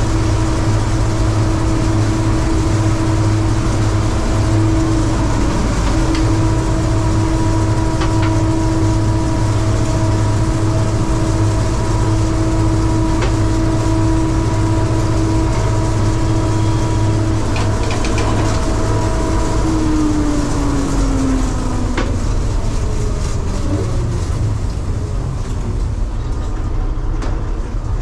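A Bizon combine harvester running: a steady low engine drone with a whine from its drives. About two-thirds of the way through, the whine falls in pitch and fades, and a few faint knocks can be heard.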